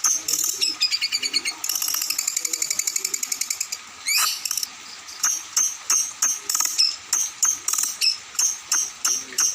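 Songbird singing: sharp high chirps repeated about three times a second, broken by a fast rattling trill about two seconds in and a short rising whistle about four seconds in.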